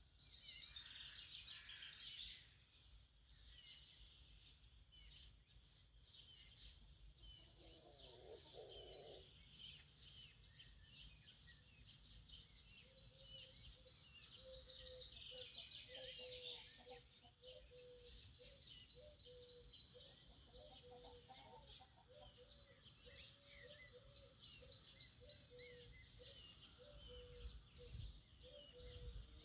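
Faint morning chorus of songbirds chirping and twittering over a low background rumble. A short, lower call comes about eight seconds in, and from about halfway a low note repeats quickly over and over until the end.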